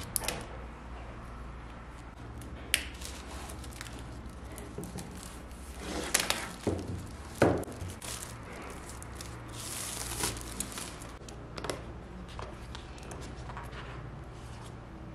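Clear plastic shrink wrap crinkling and tearing as it is peeled off a cardboard box, with scattered sharp clicks and taps of hands on the box; the loudest crackles come in a cluster about six to seven and a half seconds in.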